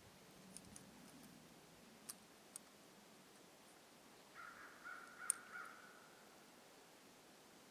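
Quiet woods with a few faint clicks, then a bird calling distantly about four and a half seconds in: a harsh call of about a second and a half, broken into several pulses. A single sharp click near its middle is the loudest sound.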